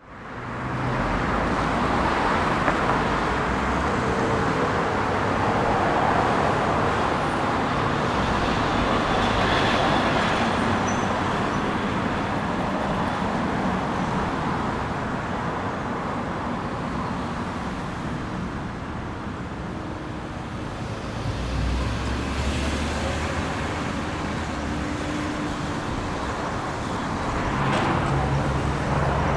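Busy city street traffic: a steady wash of passing cars, with the low engine rumble of heavier vehicles swelling past about two-thirds of the way through and again near the end.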